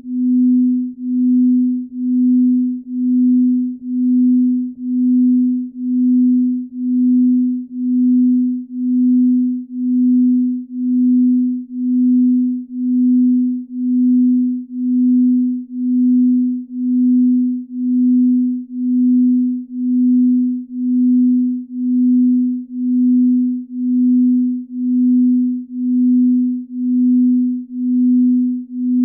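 Binaural-beat sleep tone: a steady low pure tone that swells and fades evenly about once a second as its two slightly detuned tones beat against each other.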